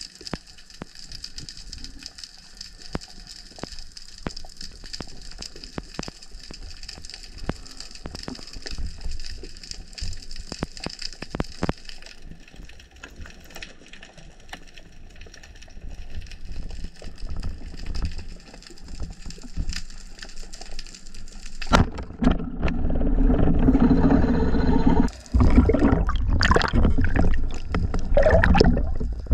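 Underwater ambience: a steady faint hiss with scattered clicks and crackles. About three-quarters of the way through, a much louder rush of water noise takes over and breaks off briefly once.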